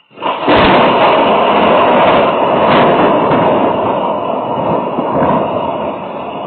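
A loud thunderclap that breaks suddenly and rumbles on for about six seconds, fading near the end.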